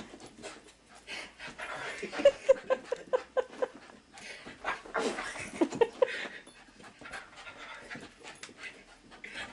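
Dog panting in quick short breaths, about four a second, in two spells a few seconds in.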